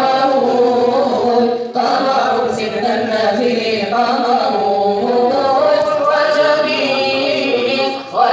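Arabic devotional chanting in the nasheed style: sung voice without instruments, long held and ornamented notes, with brief breaths about two seconds in and near the end.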